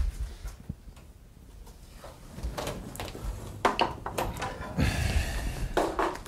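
Irregular clicks, knocks and rustling from things being handled, quiet at first, then busier from about two seconds in, with brief bursts of rustling about five and six seconds in.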